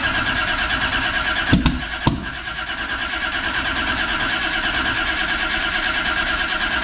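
Billet-block Toyota 2JZ inline-six being cranked over by its starter without settling into a run, a steady churning with two sharp bangs about one and a half and two seconds in. The cranking doesn't sound right, a sign the first start attempt is failing.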